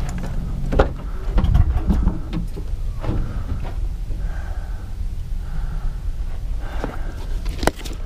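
Scattered knocks and clicks of a scrapped car's door and seat-belt hardware being handled, with a sharp click near the end, over a steady low rumble of wind on the microphone.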